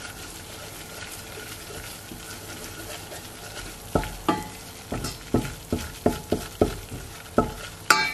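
Butter and flour sizzling gently in a stainless steel pot as the flour is lightly toasted for a roux, stirred with a wooden spatula. About halfway through the spatula starts knocking and scraping against the pot, a quick irregular series of knocks, two or three a second.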